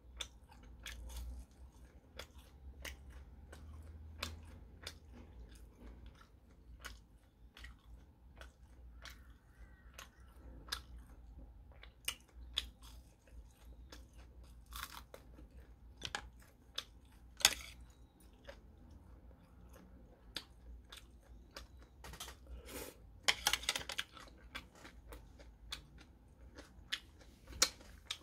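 Chewing and crunching of fried battered shrimp, close to the microphone: irregular crisp crackles and clicks, with a louder run of crunches about twenty-three seconds in.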